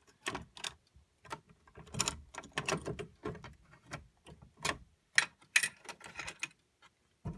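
Irregular clicks and light metallic rattles of a key and the reset mechanism of a Silent Knight fire alarm pull station as it is being reset.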